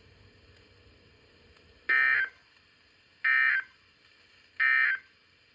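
Emergency Alert System end-of-message signal on NOAA Weather Radio: three short digital data bursts, a second or so apart, marking the end of the severe thunderstorm warning.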